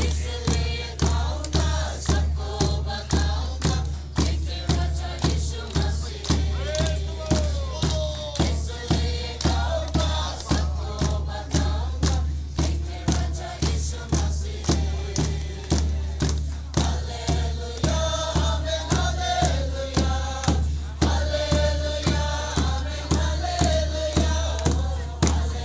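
A group of voices singing a gospel song together in unison, with a large bass drum struck by a padded beater keeping a steady beat about twice a second, and hand clapping along with the beat.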